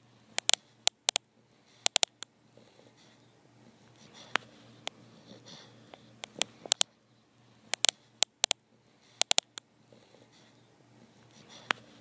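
Sleeping bulldog snoring softly through its nose, with slow swelling breaths and clusters of sharp clicks and crackles.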